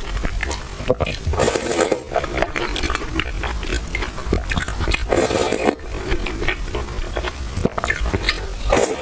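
Close-miked mouth sounds of eating milk tea with soft, chewy purple rice: wet chewing clicks, with three longer slurps.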